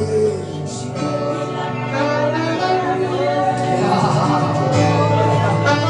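Live worship band music: guitar over sustained bass notes, with singing over the top.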